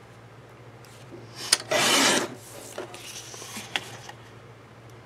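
CutterPillar Pro paper trimmer's blade drawn along its rail, slicing through a sheet of cardstock in one short rasping swipe about two seconds in, with a click just before it and a few light clicks and paper rustles after.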